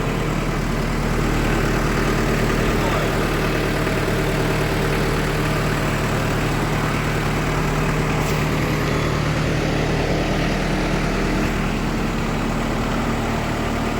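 Kubota M59 tractor-loader-backhoe's diesel engine running at a steady, even speed while the machine is manoeuvred.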